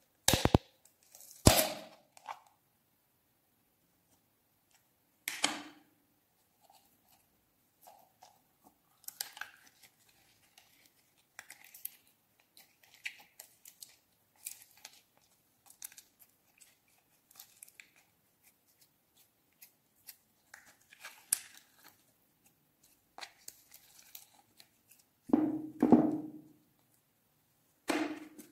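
Plastic slime tub being opened with sharp snaps of the lid, then small sticky crackles and squelches as green slime is pulled and worked out of the tub. Near the end comes a louder, fuller squelch as the slime comes free into a glass dish, followed by another plastic click.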